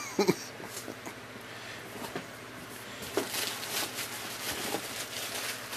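Green plastic bubble wrap rustling and crinkling as it is lifted out of a cardboard shipping box, with short scratchy bursts that grow busier about three seconds in.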